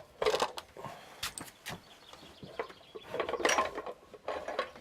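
Irregular metallic clicks, scrapes and knocks as the front wheel spindle of a Can-Am dirt bike is worked out of the fork legs and hub by hand, with a busier stretch of scraping a little past halfway.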